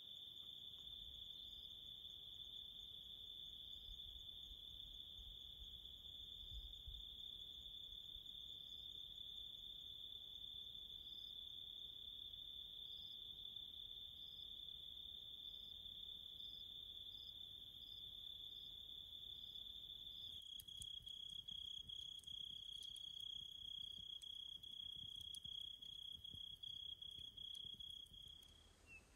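Crickets trilling in one steady, continuous high-pitched note. About two-thirds of the way in, the trill shifts slightly and faint crackles of a wood campfire join it.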